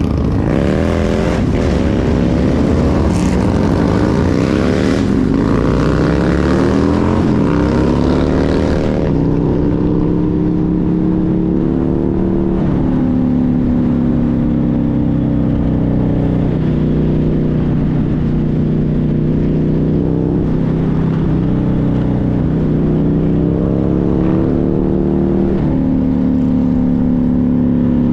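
Motorcycle engine pulling away and shifting up through the gears, its pitch climbing and dropping back several times, then running steadily at cruising speed with small changes of throttle. A hissing rush over it cuts off about nine seconds in.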